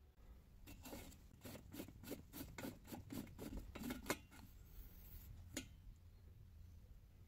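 Faint scraping of old brass threads as the knurled pump cap of a kerosene pressure stove is unscrewed by hand from the tank, about a dozen short strokes at roughly three a second, then a single click.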